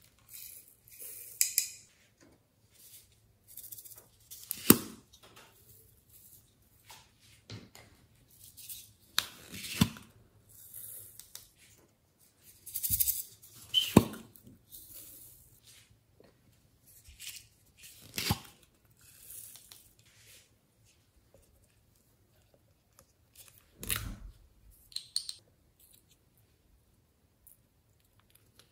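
Small plastic containers clicking and tapping, with glitter and sequins rattling and sprinkling into a glass dish. Scattered sharp taps and short rustling shakes, a few seconds apart.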